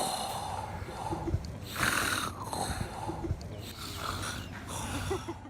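A man snoring, several rasping breaths one after another.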